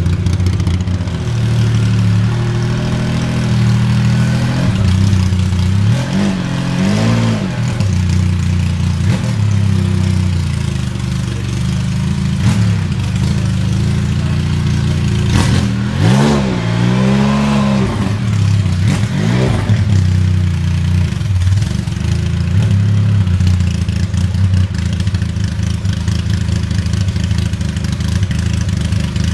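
Singer DLS Turbo's straight-piped twin-turbo 3.8-litre flat-six running at a low idle, blipped three times, with the revs rising and falling each time.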